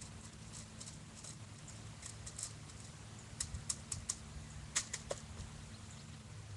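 A scatter of light, sharp clicks and taps, bunched together a little past the middle, over a steady low hum.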